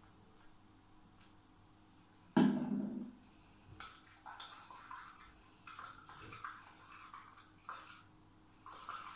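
A single loud thump about two and a half seconds in, then a stirring stick scraping and stirring in a small cup in irregular strokes as borax mixture is worked into slime.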